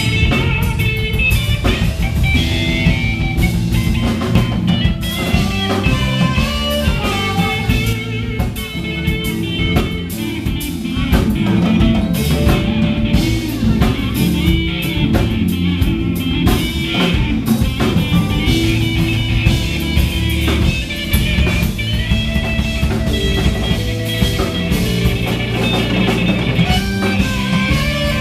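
Live band playing an instrumental blues-rock number: electric guitar lead over a drum kit, with bass and keyboard.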